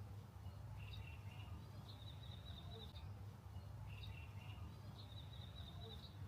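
A songbird singing the same short phrase over and over, about every three seconds: a couple of brief notes followed by a high trill lasting about a second, over a steady low background rumble.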